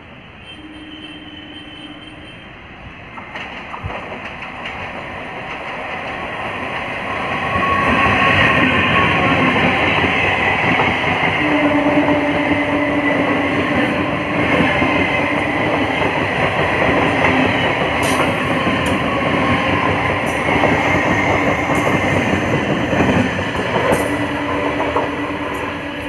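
Electric multiple-unit local train passing close: the sound grows from a distant rumble over the first several seconds to a loud, steady clatter of wheels over the rails, with a high wheel squeal.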